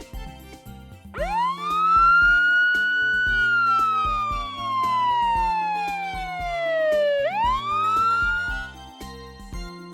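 A siren winds up about a second in, holds a high tone, then slowly winds down for several seconds before rising sharply again and fading near the end. Background music plays underneath throughout.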